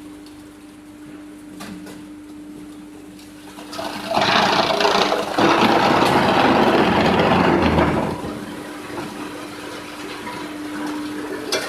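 Wood chipper running with a steady hum; about four seconds in, material goes through it and a loud chipping noise lasts about four seconds before it drops back to the idle hum.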